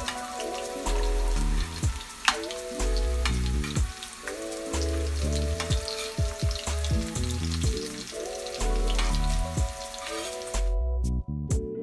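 Potato wedges sizzling and crackling in hot oil in a stainless steel frying pan, with a metal spatula turning them. Background music with held notes and a bass line runs underneath. The sizzle drops away about a second before the end.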